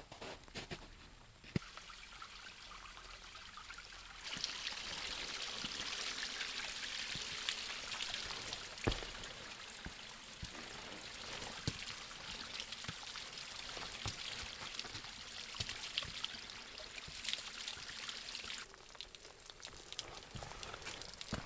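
Rain and trickling water: a dense steady hiss that starts about four seconds in and falls away near the end, with scattered drips and taps through it.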